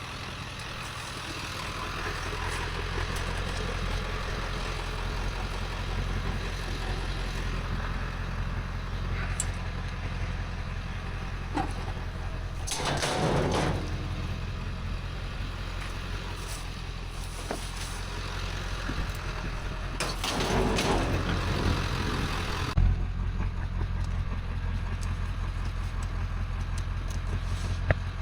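Truck engine and road noise while driving: a steady low drone with an even rush over it, swelling twice into louder rushes of noise, about halfway through and again some eight seconds later.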